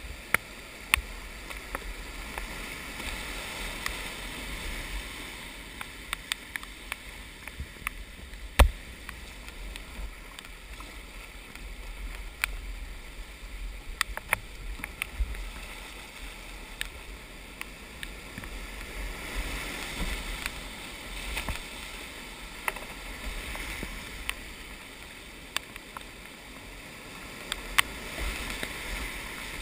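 Whitewater rushing over rocks around a kayak, heard from a helmet camera, with a low rumble underneath. Scattered sharp knocks and splashes run through it, the loudest about eight and a half seconds in.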